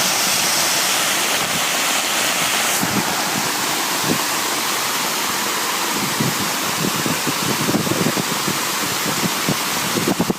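Loud, steady rushing of floodwater. About three seconds in the sound changes, and from about six seconds on it is broken by rapid, irregular low thumps.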